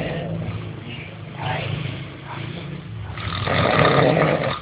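A person snoring: rasping breaths come in swells, the last and loudest one near the end, over a steady low hum.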